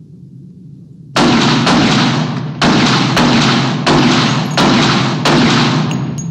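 Beretta 92F 9 mm semi-automatic pistol fired in quick succession, roughly two shots a second. The shots start about a second in and stop near the end, each one ringing on into the next.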